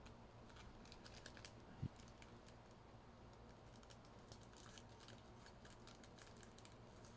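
Near silence: room tone with faint scattered clicks and one soft tap about two seconds in.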